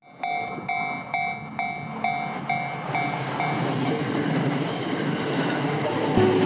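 Japanese railway level-crossing warning bell dinging about twice a second and fading away after three seconds or so, while a JR commuter train passes with a steady rumble of wheels on track. A heavy thud comes near the end.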